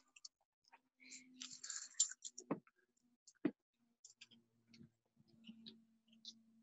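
Faint scattered clicks and knocks, with a brief rustle and a faint low hum in the second half, typical of footsteps and handling noise while walking on a wooden deck.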